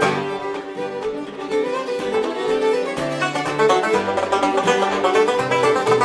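Banjo, fiddle and acoustic guitar playing a tune together in a traditional session, with quick runs of notes over strummed guitar chords.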